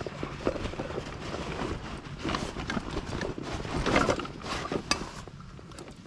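Irregular knocks and rustling, with a sharp click a little before five seconds in.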